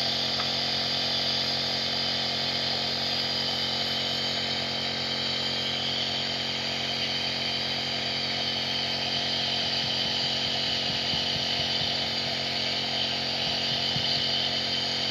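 Compressor nebulizer running steadily: an even motor buzz with a hiss of air and mist that does not change.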